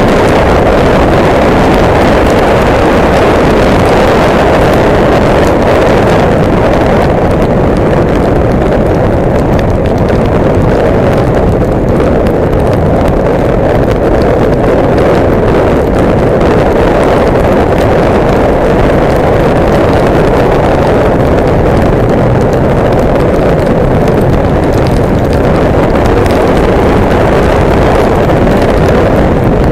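Steady rush of wind buffeting the microphone on a motorcycle riding at speed in heavy rain, mixed with the bike's running and the hiss of tyres on the wet road.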